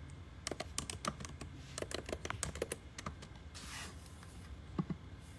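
Typing: a quick, irregular run of clicking taps for about two and a half seconds, a brief rustle, then two more taps near the end.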